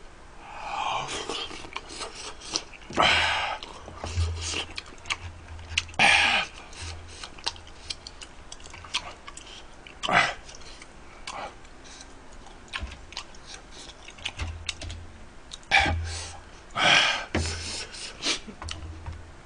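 A man eating spicy tteokbokki (Korean rice cakes in red chili sauce) with chopsticks: wet chewing, and several short, loud slurps as he sucks the sauced rice cakes into his mouth, among small clicks.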